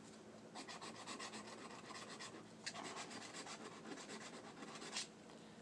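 Scratch-off lottery ticket being scratched off in quick repeated strokes, a soft rasping that starts about half a second in and stops about five seconds in.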